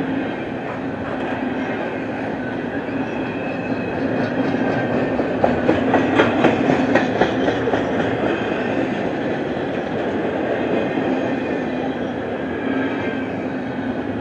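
Double-stack intermodal container cars of a freight train rolling past, a steady rumble of steel wheels on rail. A run of sharp wheel clicks comes about six to seven seconds in, the loudest part.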